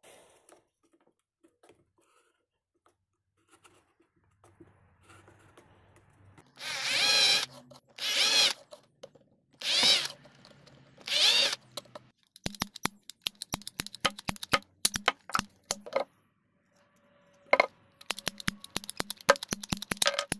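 A cordless drill runs in four short bursts, its pitch wavering, as it bores through a PVC pipe. Then come rapid trains of sharp clicks from a ratcheting PVC pipe cutter working on the pipe, with a short pause between them.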